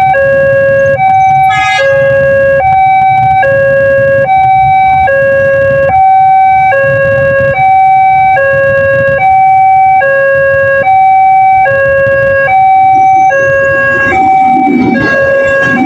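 Railway level-crossing warning siren, a Daop 2 Bandung-type electronic unit, sounding a steady two-tone alarm that switches between a higher and a lower tone a little under once a second. It warns of an approaching train. Near the end a low rumble joins it.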